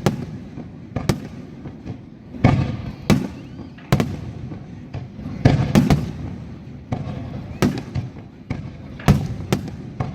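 Aerial fireworks shells bursting overhead: a string of sharp bangs, roughly one a second, some in quick pairs, each followed by a low rumbling echo.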